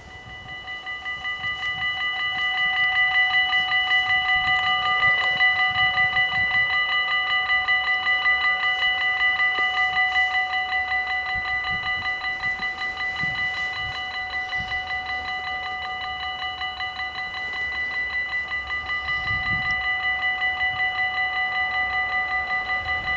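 Two level-crossing warning bells at a Dutch half-barrier crossing ringing with rapid strokes, about four a second, building up over the first few seconds. They warn of an approaching train while the red lights flash and the barriers come down.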